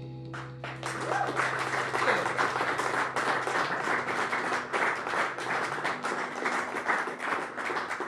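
The final chord of a song on acoustic guitars and bass guitar rings out and fades in the first half second, then an audience applauds with dense, steady clapping.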